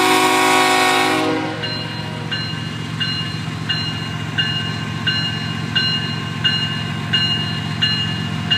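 Diesel freight locomotive's air horn sounding a chord that cuts off about a second and a half in, over the low, steady hum of the diesel engine. Then a bell rings evenly, about three strikes every two seconds.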